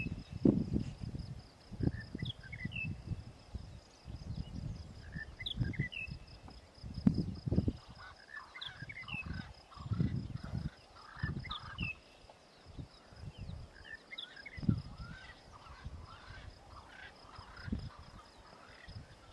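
Bush ambience: a bird repeats a short chirping phrase every second or two, over a steady high insect-like whine and irregular low rumbles.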